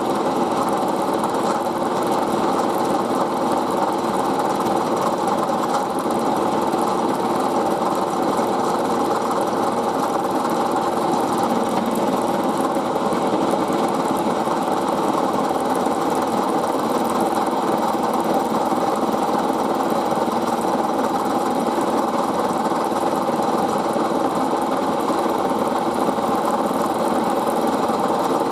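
Milling machine running, its end mill cutting a step into brass bar stock with a steady, unbroken drone.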